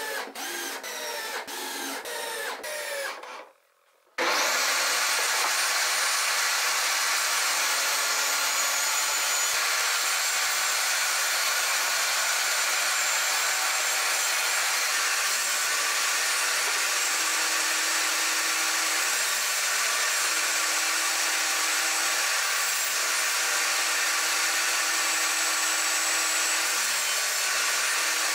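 A cordless drill driving screws for the first few seconds, whirring in short runs. After a brief gap a table saw's motor starts and runs steadily and loudly to the end.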